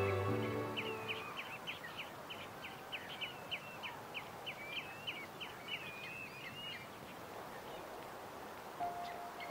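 Background music fading out in the first second, then shorebirds calling: a quick run of short high chirps and little trills, a few a second, for about six seconds over a steady outdoor hiss.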